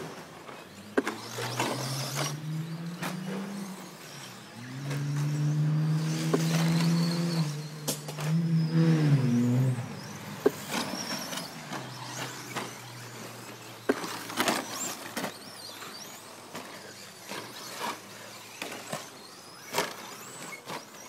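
Radio-controlled short-course trucks racing on a dirt track: faint motor whine with scattered knocks and clicks from the cars. From about a second in until about ten seconds in, a louder, low engine-like drone rises and falls in pitch, then fades.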